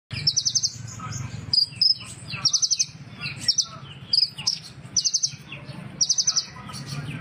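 Sunbird of the kind sold in Indonesia as 'kolibri ninja' singing: quick high trills of four or five sharp notes, repeated about once a second with softer chirps in between, over a steady low hum.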